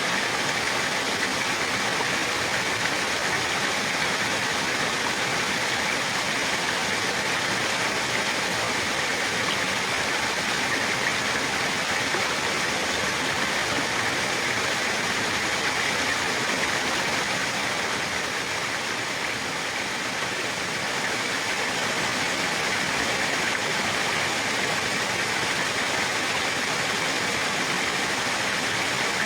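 Running water flowing steadily: a continuous, even rush that eases slightly for a moment about two-thirds of the way through.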